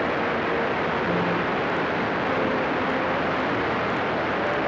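Steady drone of a light aircraft in flight: an even rush of engine and air noise with faint steady tones that come and go.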